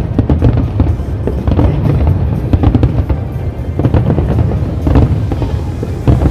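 Fireworks display: a rapid, continuous string of bangs and crackles from bursting aerial shells, with music playing underneath.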